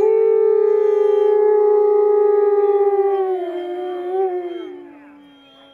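Gray wolves howling in chorus: two long howls held on a steady pitch overlap, then slide down in pitch and fade away near the end.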